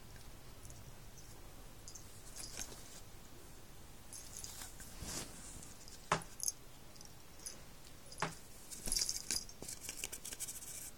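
Soft rustling of a duvet with light scratches and clicks as a cat paws and claws at a plastic drinking straw, with two sharper taps about six and eight seconds in and a busy patch of scratching near the end.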